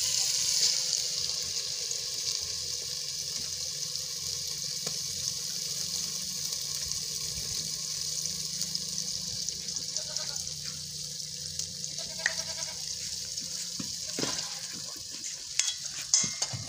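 A pot of potato and egg curry sizzling over a wood fire, a steady hiss. A few metal clinks of utensils near the end.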